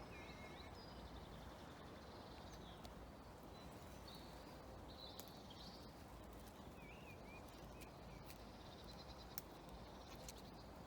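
Faint woodland birdsong: scattered short chirps and warbles from small birds, over a quiet steady background hiss.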